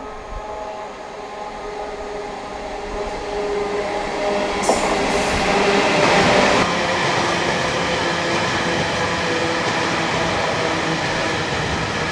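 A diesel freight locomotive passes close by, its engine note growing louder to a peak about six seconds in. It is followed by the steady rumble and clatter of a long train of empty open wagons rolling past, with a brief high-pitched noise about five seconds in.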